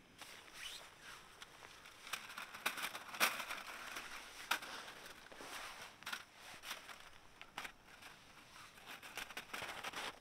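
Hands handling a backpacking gas stove and a folding aluminium windscreen: irregular clicks, light metallic knocks and crinkly rustling as the thin panels are unfolded and stood around the stove. The sharpest knocks come about three and four and a half seconds in.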